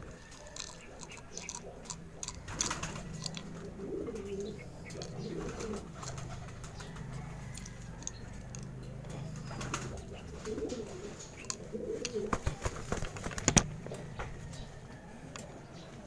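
Racing pigeons cooing in low, wavering calls, with a few sharp clicks and rustles from the birds being handled; the loudest click comes near the end.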